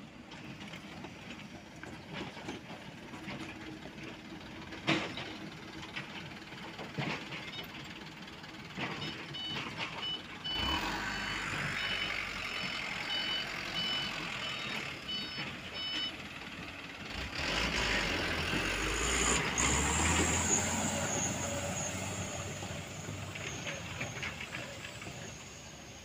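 Diesel dump truck engines running at low speed on a muddy track. For about five seconds around the middle a truck's reversing alarm beeps in an even repeating series, then an engine grows louder under load with a high steady whistle over it for a few seconds.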